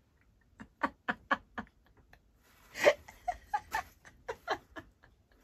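People laughing in runs of short, quick pulses, with one louder burst of laughter near the middle.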